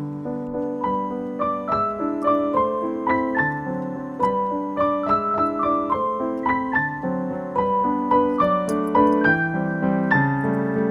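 Background piano music: a calm melody of single notes and chords struck in a steady flowing run.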